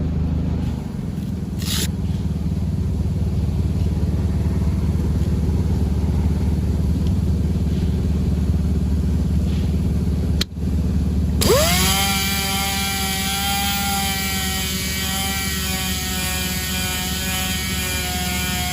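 A steady low drone, then, after a brief break about ten seconds in, a power sander spins up with a quick rising whine and runs on at a steady high whine, sanding the damaged area of an alloy wheel with 150-grit paper.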